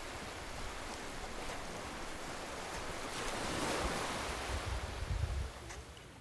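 Wind-ruffled lake water washing and lapping, with wind rumbling on the microphone; the gusts swell about halfway through and die down near the end.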